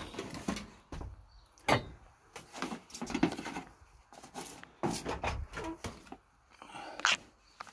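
Irregular knocks, clunks and rattles of gear and the metal tool chest being handled and shifted in the back of a van, about a dozen sharp strokes with the loudest a little under two seconds in and again around three and seven seconds.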